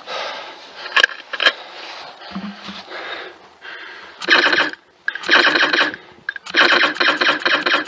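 Electronic gunfire sound effects from laser tag guns: two sharp single clicks in the first couple of seconds, then from about four seconds in, bursts of rapid automatic fire at about seven shots a second, the last burst running on unbroken.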